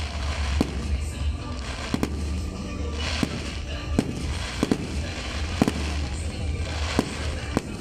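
Aerial fireworks shells bursting overhead, with sharp bangs coming about once or twice a second, some in quick pairs, over a steady low rumble.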